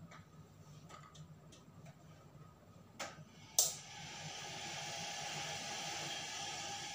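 A few small clicks, then a sharp click about three and a half seconds in as an electric kettle is switched on at the wall socket, followed by a steady hiss that slowly grows as the kettle starts to heat.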